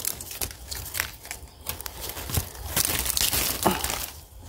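Dry bamboo leaves and thin bamboo stems rustling and crackling as a hand pushes through a bamboo clump, a quick run of small crackles with a denser, louder stretch about three seconds in.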